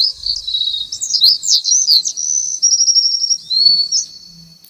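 Small songbird chirping and twittering: quick high chirps that rise and fall, a fast trill about midway, fading out near the end.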